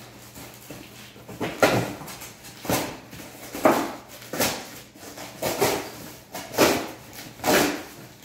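Packing tape and cardboard of a long shipping box being torn and cut open: a series of short tearing sounds, about one a second, seven in all.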